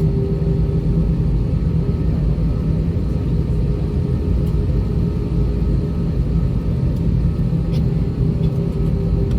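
Inside the cabin of an Airbus A320-232 taxiing on its IAE V2500 engines at low thrust: a steady low rumble with a constant hum over it.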